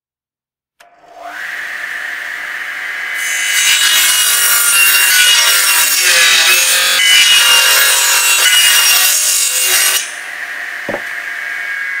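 Table saw starting with a click and running up to a steady whine, then cutting through a long wooden board for about seven seconds. After the cut the blade runs free again, with a single knock near the end.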